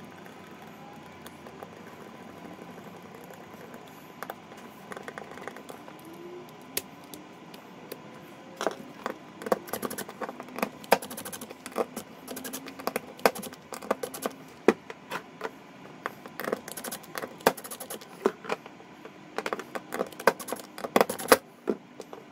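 Small hard parts being handled while a power cord is fitted with a new plug: scattered clicks, taps and scrapes, sparse at first and coming thick and fast from about eight seconds in.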